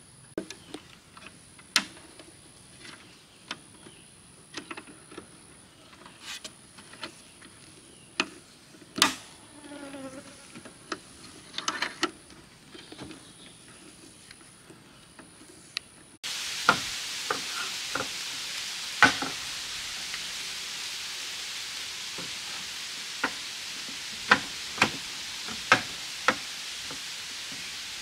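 Irregular knocks and taps under a high, steady insect buzz that breaks off and resumes every second or two. About sixteen seconds in the sound changes abruptly to a steady hiss with a few sharp, widely spaced knocks.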